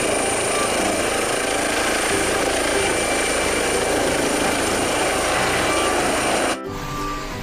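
Air ambulance helicopter lifting off and climbing: a steady rotor and engine noise with a high, steady turbine whine over it. It cuts off abruptly about six and a half seconds in.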